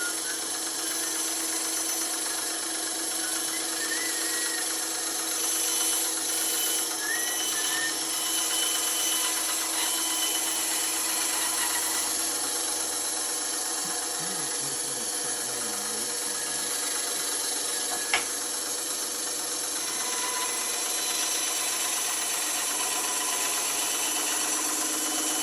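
Bandsaw running steadily, its blade cutting through wood, with a single sharp click about eighteen seconds in.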